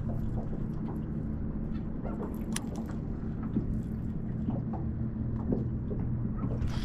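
A small motor humming steadily, with a few light clicks and taps over it.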